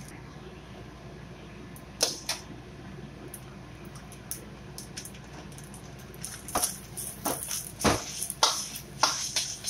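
Metal ladle scraping and knocking against a stainless steel wok as fried rice and sliced duck are stir-fried, a couple of knocks about two seconds in, then quick, repeated clanks and scrapes over the last three seconds. A steady low hum runs underneath.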